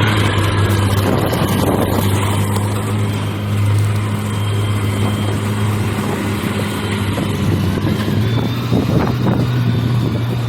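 Heavy sawmill machinery running with a steady low hum, with a few sharp knocks near the end.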